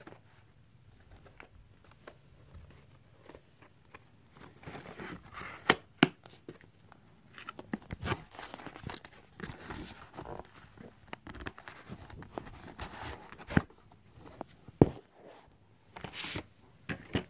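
DVD box-set packaging being handled: faint rustling and crinkling of cardboard and plastic, with scattered sharp clicks and knocks.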